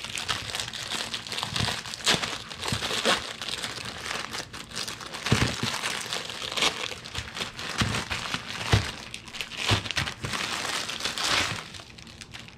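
Plastic wrapper of an instant ramen packet crinkling and crackling as it is pulled and twisted by hand, with sharp crackles throughout; the packet is hard to open. The crinkling dies down near the end.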